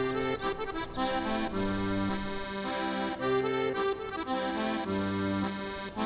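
Instrumental background music: a melody of held notes over a low bass note that returns about every second and a half.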